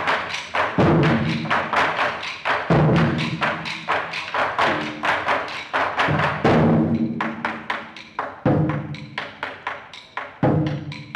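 Ensemble of Chinese barrel drums beaten with sticks: a heavy unison stroke about every two seconds, its low boom ringing on, with rapid lighter strokes filling the gaps between.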